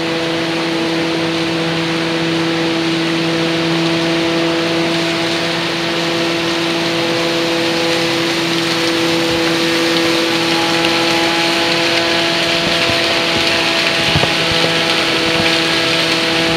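Stream water rushing over shallow rapids, a steady hiss that grows louder near the end. A steady low hum runs underneath.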